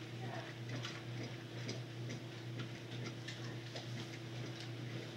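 Light, irregular clicks and small taps over a steady low electrical hum.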